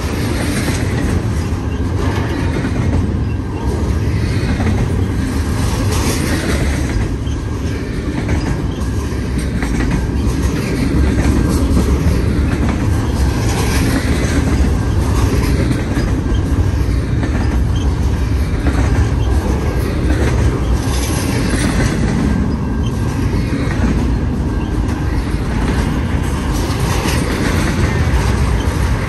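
Train cars rolling past at track side: a steady heavy rumble of wheels on rail, with repeated clatter as the wheels cross the rail joints.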